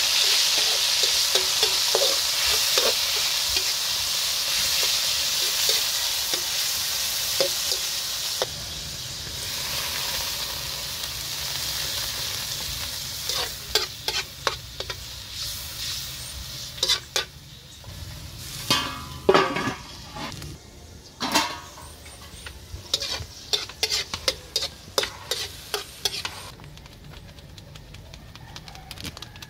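Meat frying in a hot wok, sizzling loudly, until the sizzle drops about eight seconds in as sauce goes in. Then a metal spatula scrapes and clicks against the wok as the meat is stirred, while the pan keeps sizzling more quietly.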